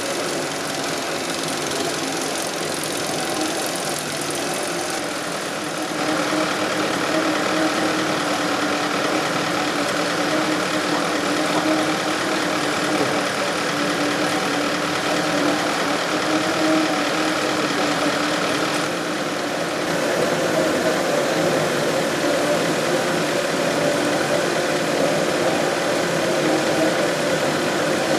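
Batter and breading machine running steadily: continuous conveyor and motor noise with a low hum. It grows louder about six seconds in and changes character again near twenty seconds.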